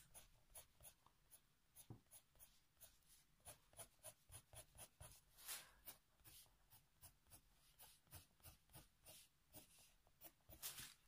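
Faber-Castell Polychromos colored pencil scratching on colouring-book paper, faint and in short quick hatching strokes at about three or four a second.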